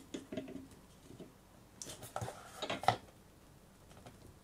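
Hard plastic clicks and knocks as a Noblechairs Legend gaming chair's adjuster handle is handled and pushed onto its rod under the seat, a compression fit. A few light clicks come first, then a cluster of sharper knocks about two to three seconds in.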